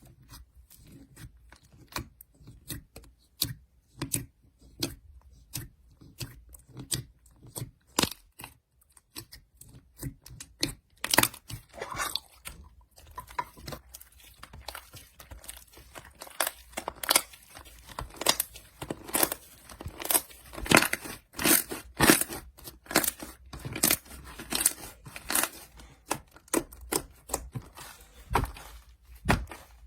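Crisp crunching and tearing, many sharp crunches in quick succession, sparse at first and coming faster and louder from about eleven seconds in.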